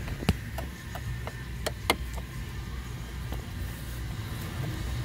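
A few sharp clicks and taps, the loudest about a quarter second and two seconds in, as a screwdriver works a Phillips screw out of the plastic dashboard around the instrument cluster, over a steady low hum.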